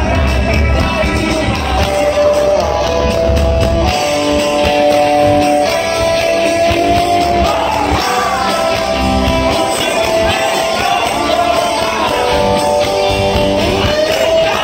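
Rock band playing live in a large hall, heard from the crowd: a singer holding long notes over electric guitars, bass and drums. The heavy low end thins out about four seconds in.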